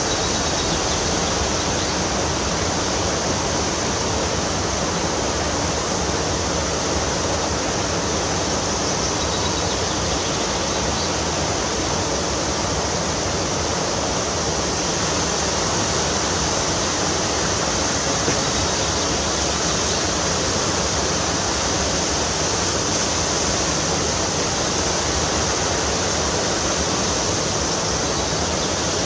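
Steady, unbroken rushing of fast-flowing water, as from a river or stream.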